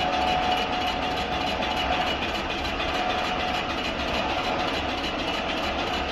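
Large-diameter CNC wood lathe turning a 900 mm log, the cutting tool working the spinning wood: steady machine noise with a low hum and a thin whine that weakens about two and a half seconds in.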